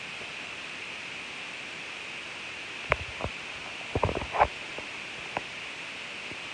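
A few short clicks and knocks over a steady hiss: one about three seconds in, a quick cluster of them about four seconds in, and a last one just after five seconds.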